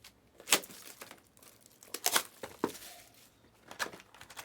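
Plastic card-pack wrapper crinkling and tearing as trading-card packs are opened and handled, in a few short sharp rustles.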